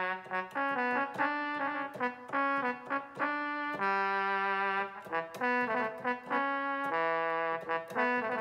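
Roland XP-10 synthesizer playing a brass-like preset: a melodic line of short and held notes, each starting sharply.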